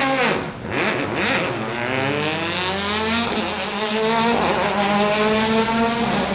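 Rally car engine under hard acceleration: the pitch drops briefly at the start, then climbs steadily through the gears, with a gearshift break about three seconds in, and holds high near the end.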